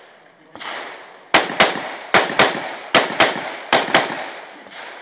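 AR-15 rifle firing rapid double-taps: four pairs of sharp shots, each pair about a quarter second apart and the pairs under a second apart, every shot trailing a short echo. A weaker single report comes about half a second in and another near the end.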